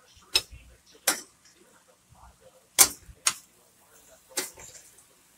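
A metal utensil clinking against a stainless steel pan while broccoli and shrimp are stirred: five sharp clinks at uneven intervals, about a second apart.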